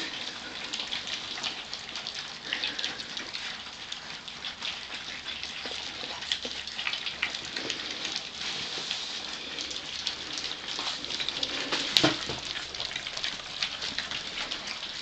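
A litter of four-week-old Gordon Setter puppies eating together from a shared dish: a continuous wet crackle of many small lapping, smacking and chewing sounds. A single sharper knock stands out about twelve seconds in.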